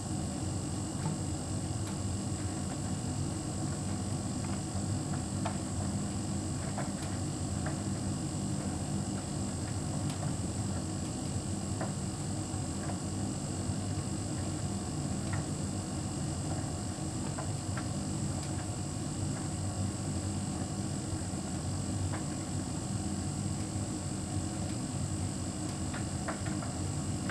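Hotpoint heat pump tumble dryer running: a steady low hum with several constant tones, and occasional faint ticks.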